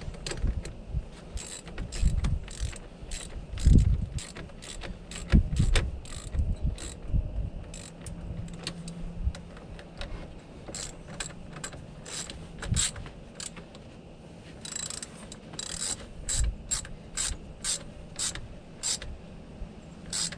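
Ratchet wrench clicking in short runs as the battery terminal clamps are tightened onto the posts, with a few dull knocks of tools against the battery hardware.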